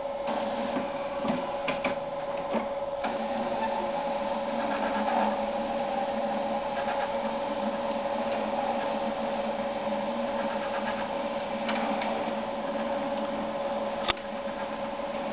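HP all-in-one inkjet printer running: a steady motor whine with intermittent mechanical clatter from the paper feed and print carriage, and one sharp click about fourteen seconds in.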